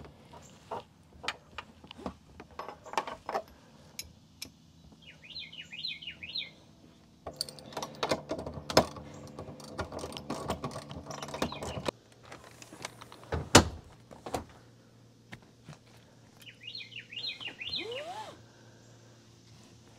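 Clicks, taps and knocks of metal seat-mounting hardware and tools as a Jeep Wrangler JLU rear seat is fitted and bolted to its floor mounts by hand, with one sharp knock a little past the middle. A bird chirps twice in the background, once early and once near the end.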